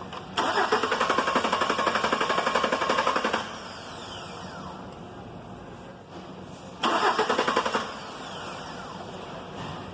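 Starter cranking a Chevrolet Silverado's gasoline V6 twice, once for about three seconds and again for about a second, with a fast rhythmic chugging, and the engine does not catch: the crank-but-no-start fault.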